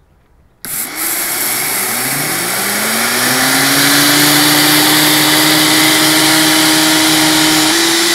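Two high-power blenders, a Vitamix Turboblend VS and an Omega BL630, started together on high, grinding dry flax seeds into meal. They kick on suddenly under a second in, the motor pitch rises over the next few seconds as they spin up, then both run loud and steady at full speed.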